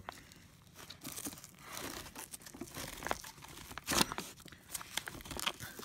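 Nylon webbing strap on a folded camping wagon being pulled and cinched tight through its plastic buckle: rasping and rustling of strap and fabric with small clicks, and one sharp yank about four seconds in.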